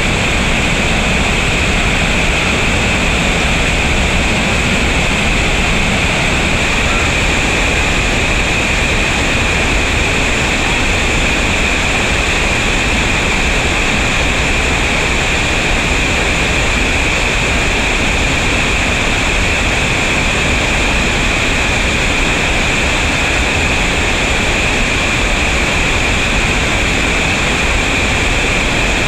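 Whitewater rushing steadily through a river rapid and small falls.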